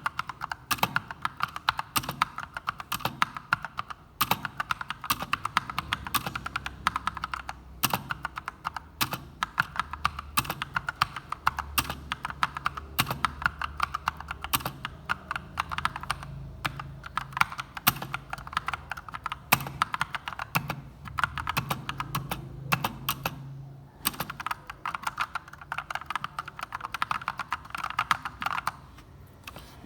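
Typing on an Akko 3068 Silent mechanical keyboard: a fast, continuous run of keystrokes with a few brief pauses, stopping shortly before the end.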